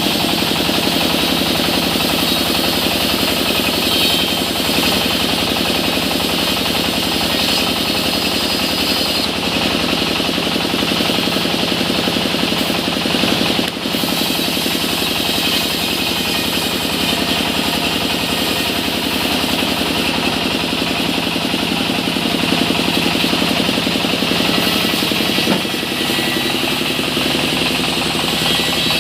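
Sawmill machinery running steadily: a loud, even mechanical drone with a strong high-pitched component. It dips briefly about halfway through and settles slightly lower near the end.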